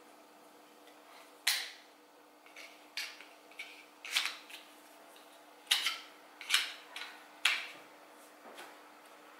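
Sharp clicks and knocks from a small wooden-handled hand tool being handled and taken apart: about six louder clicks spread unevenly, with a few fainter ones between.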